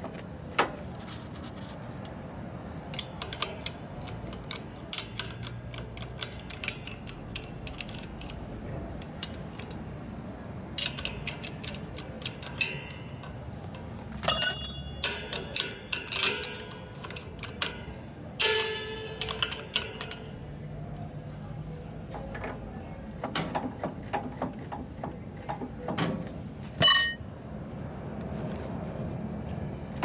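Hand tools and metal parts clicking and clinking against each other at irregular intervals. A few sharper metal clanks ring on briefly, the loudest near the end.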